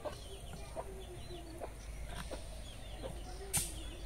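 Domestic chickens clucking, short calls coming roughly every second, with faint bird chirps. A single sharp knock sounds near the end.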